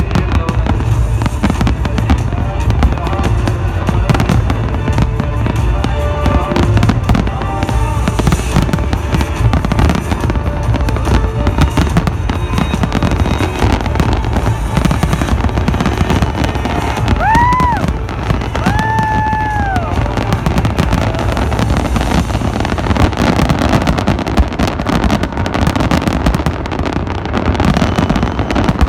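Fireworks display: a dense, unbroken barrage of bangs, loud throughout.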